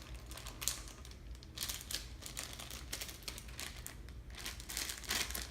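Plastic squishy packaging crinkling and crackling in irregular bursts as it is handled and opened to take the squishy out.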